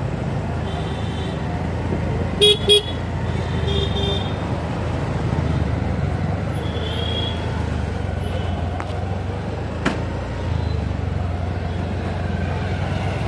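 Steady low road and engine rumble of a car moving slowly through traffic, heard from inside. A vehicle horn gives two short toots about two and a half seconds in, with fainter horns beeping a little later, and a single sharp click near the ten-second mark.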